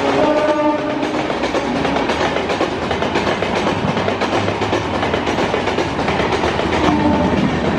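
Express passenger coaches rushing past at high speed close by: a steady roar of steel wheels on the rails with rapid clatter over the rail joints. A locomotive horn dies away in the first second.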